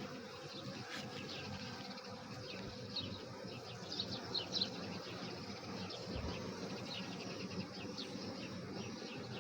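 A swarm of honeybees foraging on flowers, humming steadily all together. A few short high bird chirps sound about three to five seconds in.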